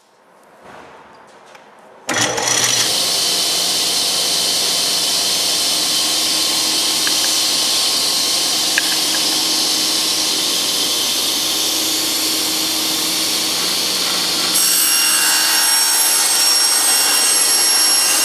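Table saw switched on about two seconds in, its motor and blade running steadily at speed. A few seconds before the end the sound gets slightly louder and adds a high whine as the blade starts ripping a board along the grain.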